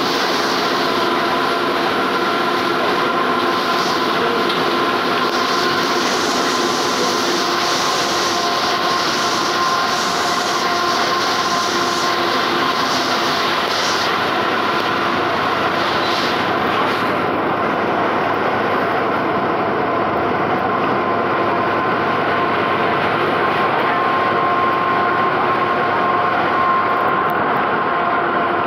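Ride noise inside a moving Mascarello Gran Via city bus on a Volksbus 17-230 OD chassis. The engine drones and whines steadily over a hiss from the tyres on the wet road. The hiss lessens about two-thirds of the way through.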